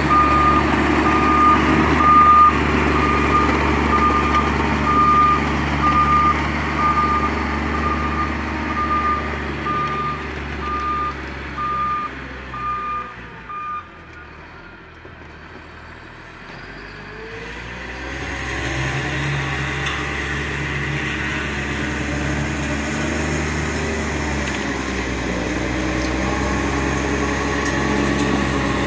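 Prinoth Bison snow groomer's engine running with its reversing alarm beeping at about one and a half beeps a second; the beeping stops about halfway. After a few quieter seconds the groomer's engine comes back up and runs steadily.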